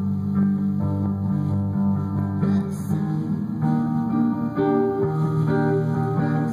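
Electric guitar being played: chords picked and left to ring, with the notes changing about once a second.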